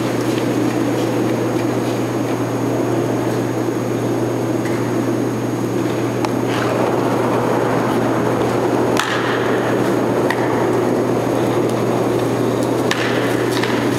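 Steady low rumble and hum of an indoor curling rink, with a sharp knock about nine seconds in and a few clicks near the end.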